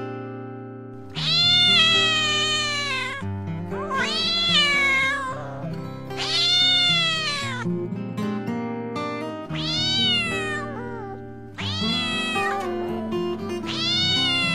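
A kitten crying in long, loud meows, six in a row, each rising and then falling in pitch: the distress cries of a kitten said to have been starved for days. Background music with sustained notes plays under the cries.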